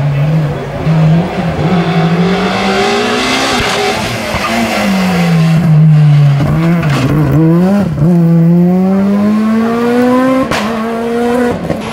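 Rally car engines at full throttle, the pitch climbing through each gear and dropping at the shifts and when lifting off for a corner. The note breaks off and starts afresh a couple of times as different cars pass.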